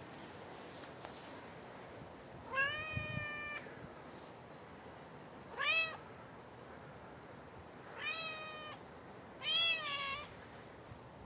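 Tabby cat meowing four times, each meow rising in pitch at its start; the first, about a second long, is the longest and the second is short.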